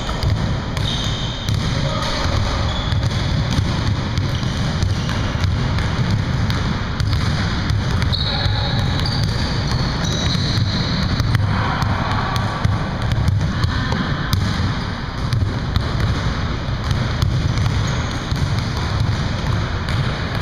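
Basketballs bouncing on a hardwood gym floor, with many irregular thuds from several balls at once. The sound echoes in a large gym, over a steady low rumble.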